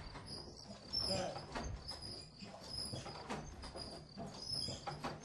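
Faint voices and scattered knocks in a bell tower, with no bells ringing.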